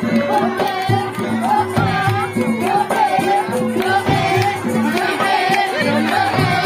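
Live Javanese jaran eblek folk music: regular drum strokes under steady, held gong-like notes, with a wavering, gliding high melody line over them.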